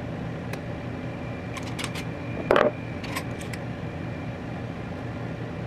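Ground spice shaken from a small glass shaker jar into an Instant Pot: a few short ticks and rattles, the loudest about two and a half seconds in, over a steady low hum.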